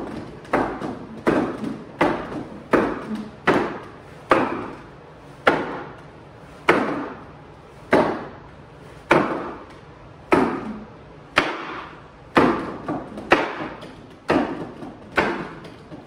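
Blocks slamming into the padded table-leg arms of a wooden makiwara striking post: a sharp wooden knock about once a second, each trailing off briefly.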